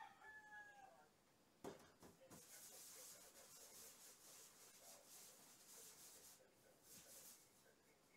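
Hands rolling balls of dough on a floured stainless-steel table: a soft, repeated rubbing and scuffing, broken by short pauses. A single knock comes just before the rubbing starts.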